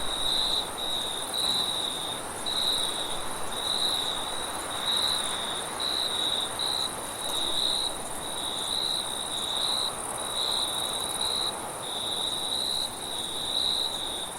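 Crickets chirping in short, pulsing high trills that repeat about twice a second, over a steady, higher hiss.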